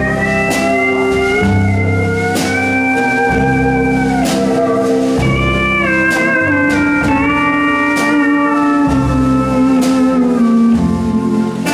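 A live country band playing a slow ballad, led by a pedal steel guitar whose long notes slide and bend smoothly between pitches over guitar, bass and drums.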